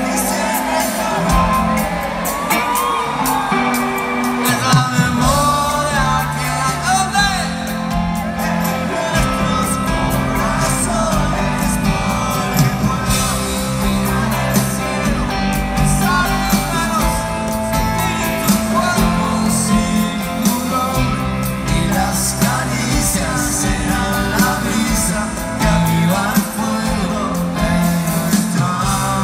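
Live rock band playing a Spanish-language rock song in an arena: lead vocals over electric and acoustic guitars, keyboards and drums, with shouts from the crowd.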